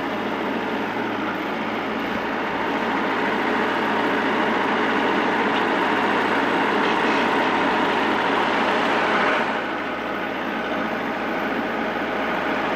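Farm tractor engine running steadily, getting a little louder a few seconds in and easing back about two-thirds of the way through.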